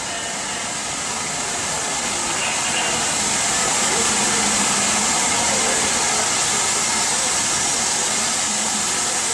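Steam train running in: a steady hiss and rumble that grows louder over the first four seconds, then holds.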